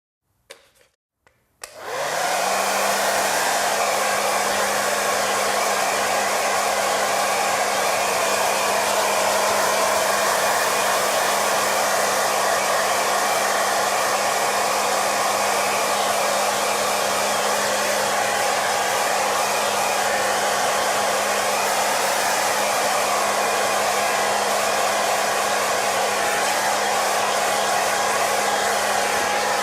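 Hair dryer switched on after two short clicks: the motor spins up within a moment to a steady hum, and the blowing air keeps up a steady loud rush.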